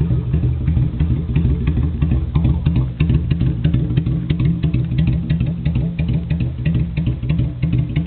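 Vento V-Thunder 250 cruiser's small V-twin idling steadily right after being started, with a fast, even pulse from the twin exhausts and a light mechanical clatter.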